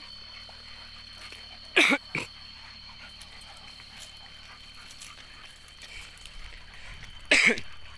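Dog barking: a quick double bark about two seconds in and another bark near the end, over a steady high-pitched hum in the background.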